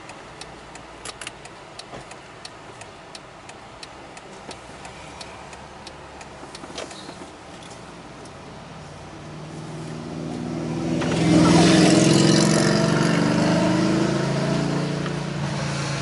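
Motor vehicle engine and road noise heard from inside a car. It is low and steady at first with a few light clicks, then a vehicle grows loud about ten seconds in, with a deep engine tone and a rushing noise, and slowly fades.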